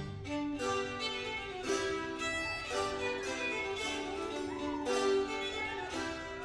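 Classical string music: a violin melody with some wavering, sliding notes over a plucked-string accompaniment.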